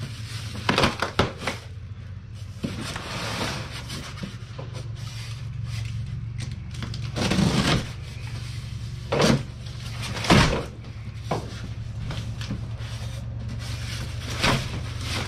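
Cardboard box and styrofoam packing being handled and pulled apart by hand: a run of scrapes, rubs and knocks, with a few sharper knocks about halfway through.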